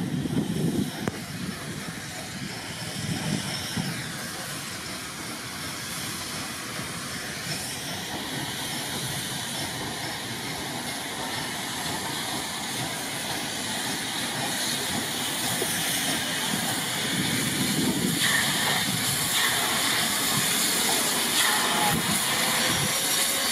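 LMS Somerset & Dorset 7F 2-8-0 steam locomotive running slowly into the station and standing, with a steady hiss of escaping steam that grows louder toward the end.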